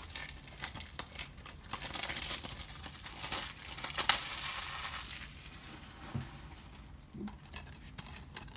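Plastic shrink wrap being torn and crinkled off a DVD case, with a sharp click about four seconds in. The handling goes quieter after about five seconds, with a couple of soft knocks.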